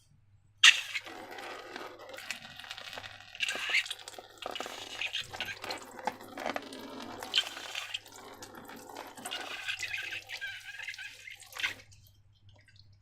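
Sticky slime squelching and dripping, starting suddenly and going on in irregular wet smacks and clicks for about eleven seconds.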